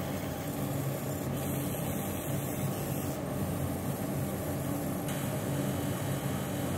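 Fiber laser marking machine running while it engraves a QR code into a knife blade: a steady machine hum with an even hiss.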